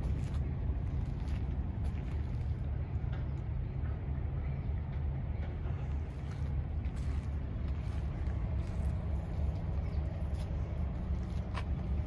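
Steady low mechanical hum, unchanging throughout, with a few faint brief clicks.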